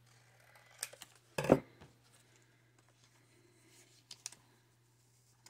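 Paper and cardstock being handled on a cutting mat: a few scattered light taps and clicks, with one louder thump about a second and a half in, over a faint steady low hum.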